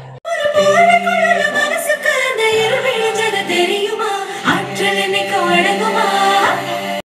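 A song with voices singing a melody over music. It starts abruptly just after the beginning, replacing a different music track, and cuts off suddenly near the end.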